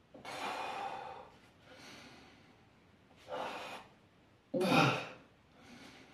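A man breathing hard through a set of dumbbell lateral raises: heavy breaths every second or so, the loudest a sharp, forceful exhale about four and a half seconds in. It is the sound of straining effort under the lift.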